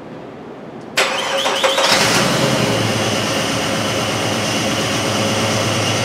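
2005 Jeep Liberty's 3.7-litre V6 cranked by the starter about a second in, catching after about a second and settling into a steady idle. It is misfiring on cylinders 4 and 6, caused by ignition coils with shorted secondary windings.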